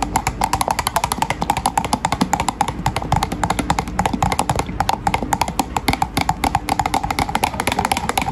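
Stick blender running in a glass jug of thick emulsified body butter cream, with rapid irregular clicking throughout as the blender head works the thickening emulsion.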